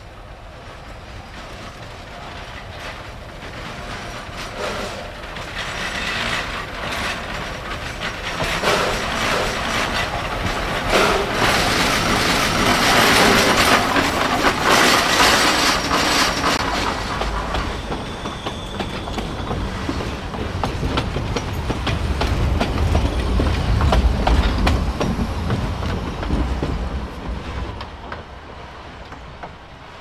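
Narrow-gauge train of passenger coaches behind a Shay steam locomotive rolling past close by, wheels clicking over the rail joints and squealing, loudest about halfway through. A deeper rumble follows before the sound fades near the end.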